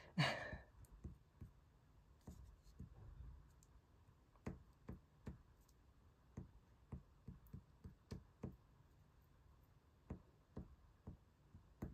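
Faint, irregular small taps and clicks as a glue stick is worked over paper and magazine cutouts are pressed down onto a sheet.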